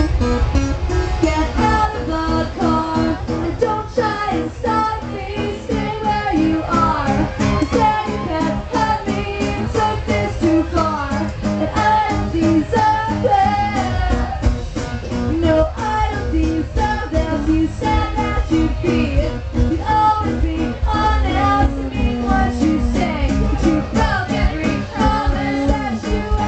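Live rock band playing loud, with electric guitars, bass and drums keeping a steady beat under a sung lead vocal.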